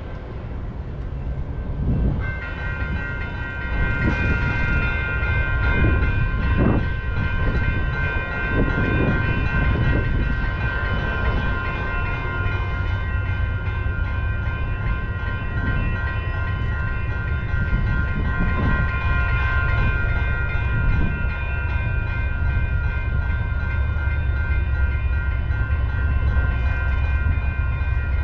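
A railway level-crossing warning bell starts ringing about two seconds in and keeps ringing steadily, the crossing activated by an approaching freight train. Underneath is a steady low rumble of wind on the microphone.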